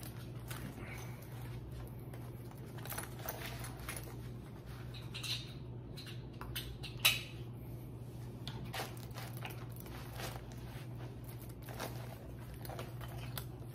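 Fabric rustling and small clicks as a belt bag is handled and strapped around the waist, with one louder sharp click about seven seconds in, over a steady low hum.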